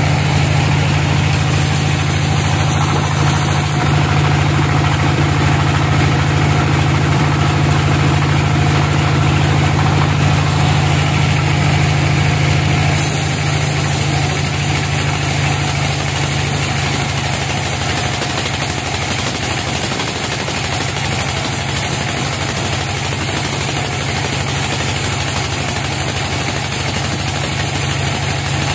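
Band sawmill running steadily, its blade cutting lengthwise through a log on the carriage, over the machine's low drone. It gets slightly quieter about halfway through.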